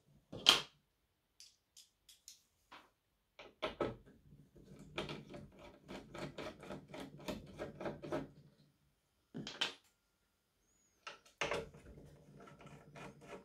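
Hand screwdriver working screws out inside a portable power station: scattered light clicks and ticks, with a run of quick clicking for about four seconds in the middle.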